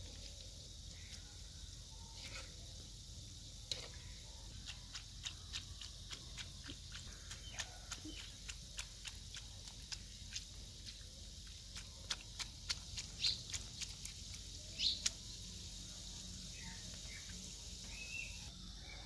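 Gulab jamun dough balls deep-frying in ghee in a large karahi: a faint steady sizzle with many small irregular pops and crackles, a few louder ones through the middle.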